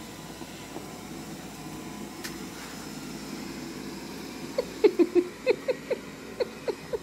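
Roborock S6 robot vacuum running on carpet, a steady even whir. About four and a half seconds in, a run of short, loud pitched sounds, about three a second, rises over it.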